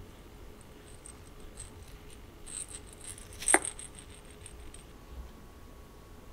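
A large jingle bell tinkling lightly as it is handled. There is a sharp clack about three and a half seconds in as it is put down, and the jingling dies away soon after.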